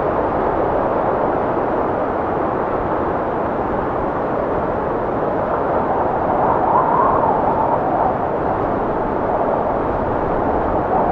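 G scale model locomotive's electric motor and gears running steadily, with a whine that rises and falls from about six to eight seconds in.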